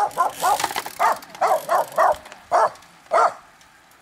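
A dog barking repeatedly in a quick run of about ten barks that slows and stops a little after three seconds in.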